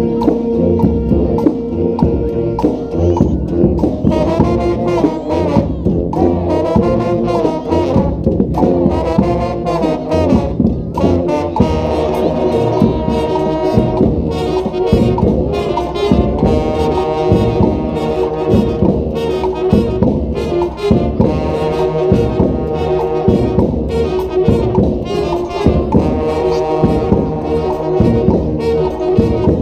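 Live brass street band playing a tune, with horns over a steady beat.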